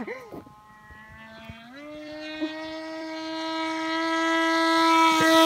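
Emax GT2215 brushless motor spinning a 10x6 propeller on a flying RC foam plane: a steady whine that steps up in pitch about two seconds in as the throttle opens, then grows steadily louder as the plane comes toward the listener.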